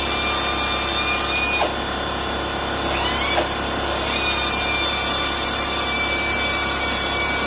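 A power tool running steadily: an even hiss with a thin high whine through it, which wavers briefly about three seconds in.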